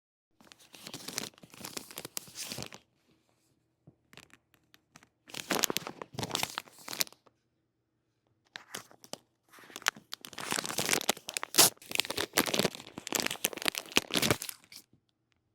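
Product packaging being torn open and crinkled by hand in several rustling bursts, with short pauses between them and the longest stretch in the second half.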